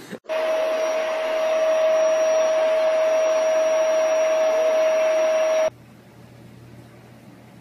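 A loud, steady whirring of an electric appliance motor, with one constant tone through it, stopping abruptly a little over five seconds in. A faint low hum follows.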